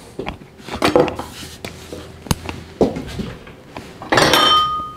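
Scattered knocks of a chef's knife on a wooden cutting board and one sharp click as it is set down, then near the end a clatter of dishes with a brief ringing tone as a bowl is taken from a cupboard shelf.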